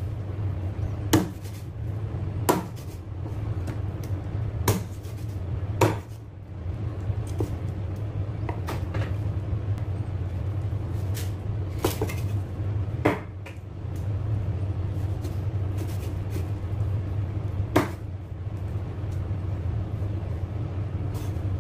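Heavy cleaver chopping raw bone-in chicken on a thick wooden chopping board: about seven hard, sharp chops and several lighter ones, a second or more apart. A steady low hum runs underneath.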